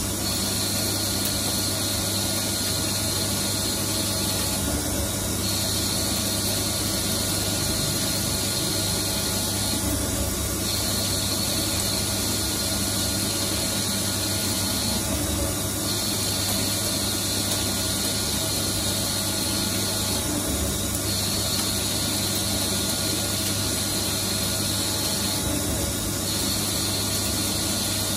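CNC lathe running, turning steel: a steady machine noise with a low hum and a high whine that drops out briefly about every five seconds.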